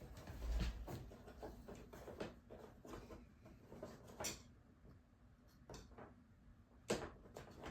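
Irregular small clicks and knocks of screws and a metal door-wheel bracket being handled and set against a wood shim, with a low thump about half a second in and a sharper knock near the end.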